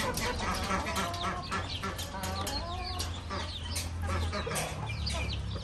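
A hen clucking while a brood of ducklings and a chick peep around her, many short, high, falling peeps overlapping.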